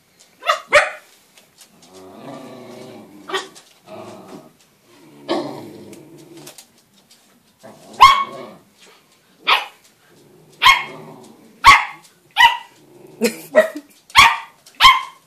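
Dog barking in short, high barks, about a dozen, coming faster in the second half, with low growling between the barks in the first half.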